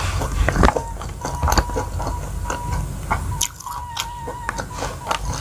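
Close-miked mouth sounds of a person chewing a mouthful of smashed fried egg and rice, with many small wet clicks and bites.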